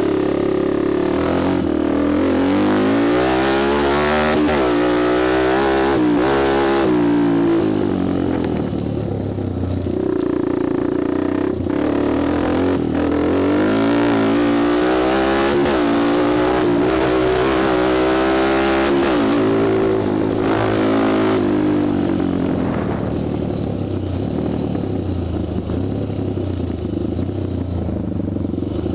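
Honda TRX250X quad's single-cylinder four-stroke engine being ridden hard, its pitch climbing and dropping again and again as it revs up and shifts, in two long bouts. It then settles to a steadier, lower note for the last several seconds.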